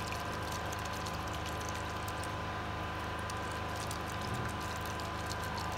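Steady low background hum with a few faint steady tones, even throughout: room tone.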